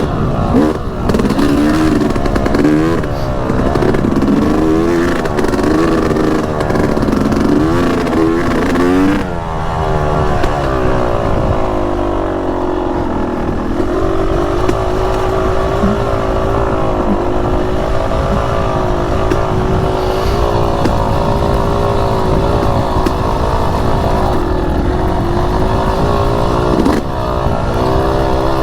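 2018 Yamaha YZ250X single-cylinder two-stroke dirt bike engine being ridden, revving up and down again and again with the throttle for the first nine seconds or so, then running more steadily, with another quick rev near the end.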